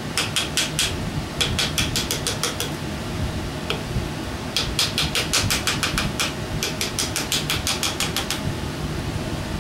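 Runs of rapid light clicking, several clicks a second, in about five bursts with a single click near the middle, over a steady hum of a shop fan.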